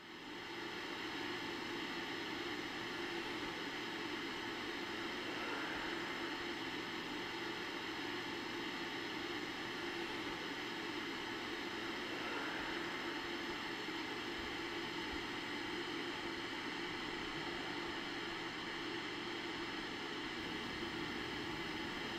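Steady hiss of a detuned television's static, which swells up at the start and then holds even.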